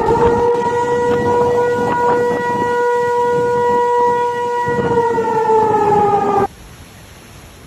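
Siren sounding one loud, steady tone that sags slightly in pitch and then cuts off suddenly about six and a half seconds in, leaving a faint hiss.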